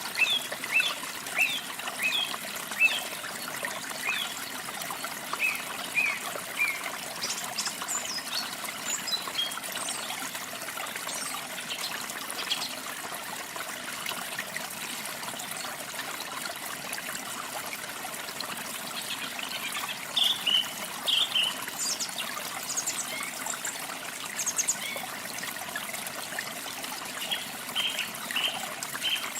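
Small songbirds chirping in short high bursts over a steady trickle of running water; the chirps come in clusters, with a quick run of them at the start and again near the end.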